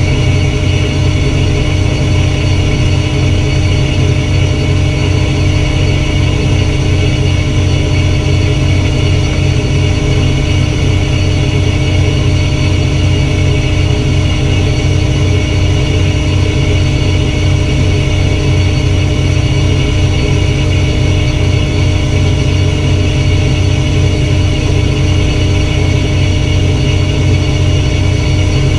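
Fishing boat's engine running steadily: a loud, even drone with a constant hum over it.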